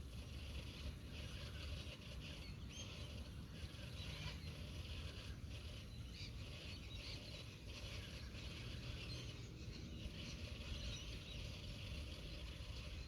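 Wind rumbling on the microphone, with scattered short chirps of small birds.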